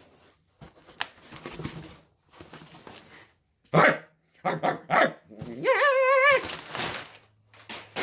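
A dog barks a few short times, then gives one drawn-out, wavering howl. Before that there are a few seconds of cardboard and packing rustling.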